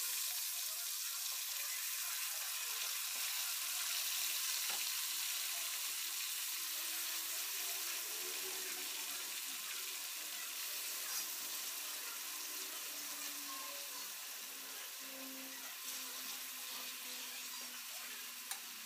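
Pork chop pieces sizzling and bubbling in oil and soy-based marinade in a wok, a steady hiss that slowly grows fainter. A short click of tongs on the pan near the end as the meat is turned.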